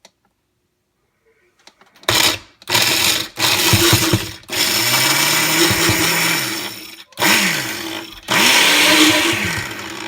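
Kitchen blender running in a series of bursts, starting about two seconds in, its motor speeding up and slowing down between short stops as it churns a thick smoothie of Takis chips, banana and ice cream.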